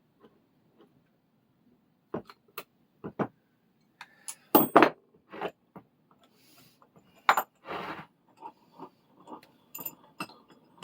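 Metal parts of a small Record No. 0 vise knocking and clinking as it is stripped down: a series of separate sharp taps and clatters, the loudest about halfway through, then lighter clinks toward the end.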